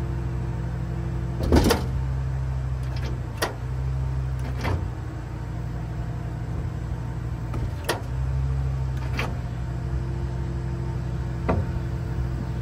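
The hydraulic system of a Dynamic self-loader wheel-lift on a tow truck runs with a steady hum that changes level and pitch a few times. About six sharp clicks and clunks come through it, the loudest about a second and a half in.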